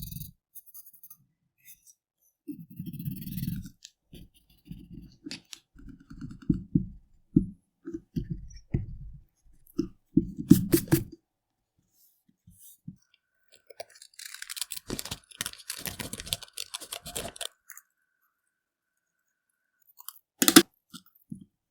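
Close-up sounds of paper crafting at a desk: pens and paper tapped and shuffled in short knocks and rubs, a scratchy stretch of paper being worked for a few seconds around the middle, and several sharp clicks such as pen caps, the loudest near the end.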